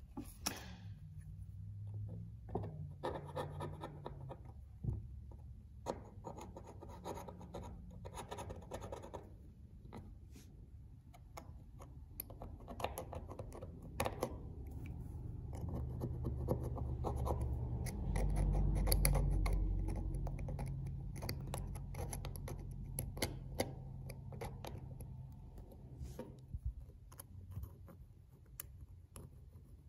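Hobby knife blade scraping leftover paint out of the seams and vents of a die-cast metal toy car body after chemical stripping: a run of short, irregular scratches and small clicks of steel on metal.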